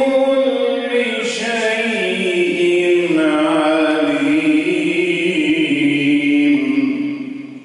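A man's solo voice in melodic Quran recitation, drawing out one long phrase on held vowels with ornamented turns of pitch, fading away about seven seconds in.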